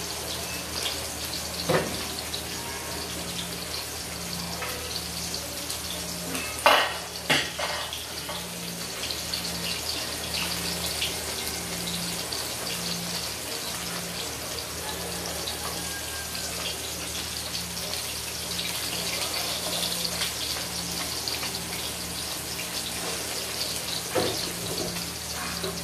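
Stainless steel cooking pot clanking against the gas stove as it is handled and set on the burner: four sharp knocks, the loudest about seven seconds in. Under them runs a steady hiss with a fine crackle.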